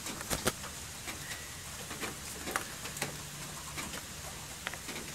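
Steady hiss of heavy rain falling, with scattered sharp clicks and taps through it.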